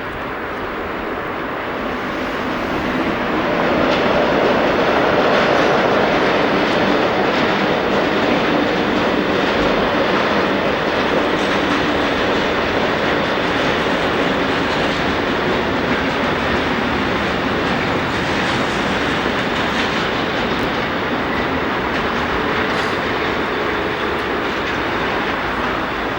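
A train running past close by, its sound building over the first few seconds and then holding steady and loud.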